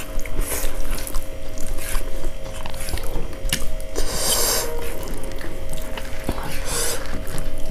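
Close-miked eating by hand from steel plates. Fingers mix and scoop soft moong dal khichuri against the metal, giving scattered clicks and short squishing, scraping bursts, along with chewing.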